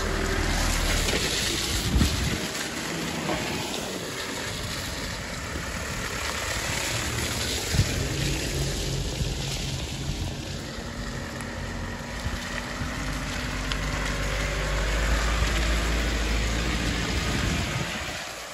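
Off-road 4x4's engine running under load as it pushes through wet monsoon mud, with a steady hiss over it; the engine note grows louder near the end.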